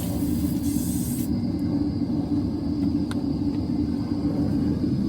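Propane torch firing into a plaster-and-sand blast furnace, a steady low rumble.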